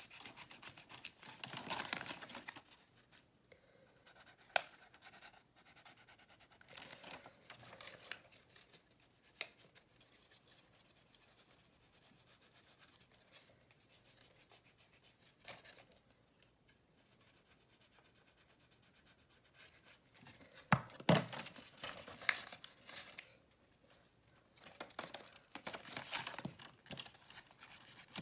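Paper crafting on a table: intermittent rustling and scratching of paper, with a few sharp taps and a louder burst of handling about two-thirds of the way through.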